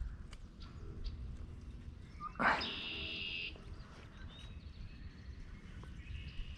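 A bird calls once, about two and a half seconds in: a sharp rising note followed by a buzzy trill held for about a second, with a fainter call near the end. A low steady rumble runs underneath.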